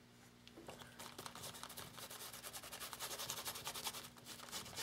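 Foam brush dabbing thick black acrylic paint through a plastic stencil onto a journal page: a faint, rapid run of soft taps and scuffs that starts about half a second in.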